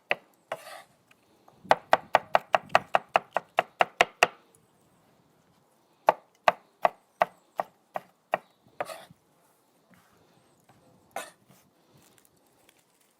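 Knife chopping fresh green chilies on a cutting board: a fast run of sharp chops, about five a second, then a slower run of chops, then a few single strikes near the end.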